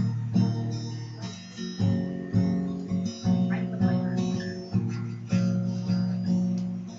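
Acoustic guitar strumming chords as an instrumental intro, each strum ringing on into the next.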